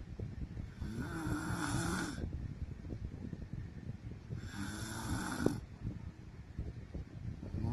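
A woman snoring in her sleep: two snores, each lasting about a second, about three and a half seconds apart.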